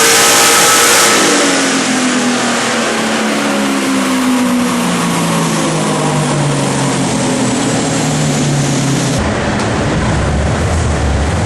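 B&M 162 supercharged 253ci Holden V8 running on E85, its note falling steadily in pitch over several seconds. About nine seconds in, the sound changes abruptly to a lower, steadier rumble.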